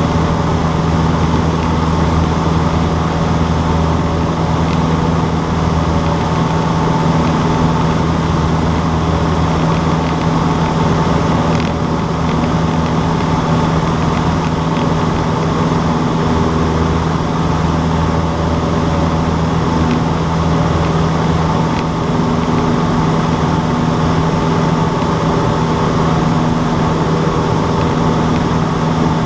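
Cessna 152's four-cylinder piston engine and propeller running at a steady, unchanging drone, as in cruise.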